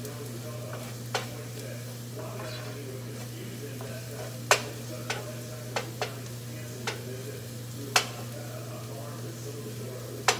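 Garlic frying in a nonstick pan with a steady sizzle, while a cooking spoon stirs it and knocks against the pan several times, the sharpest taps about four and a half and eight seconds in. A steady low hum runs underneath.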